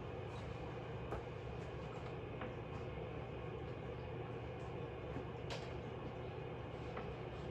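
Steady low background hum, with a few faint taps and clicks about a second in and again near five and a half seconds.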